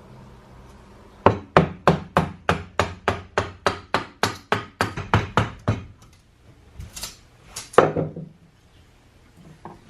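Hammer blows on wood: a quick run of about seventeen strikes at roughly four a second, then two more separate blows a second or so later.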